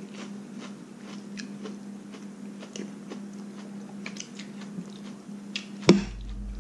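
Close chewing and mouth clicks of someone eating chili-tossed pork intestines, over a steady low hum. Just before the end a metal spoon knocks sharply against the ceramic plate as he scoops more.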